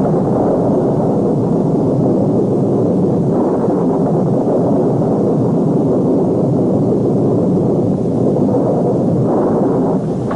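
Storm-wind sound effect blowing loud and steady as a dense rushing noise, swelling about three seconds in and again near the end.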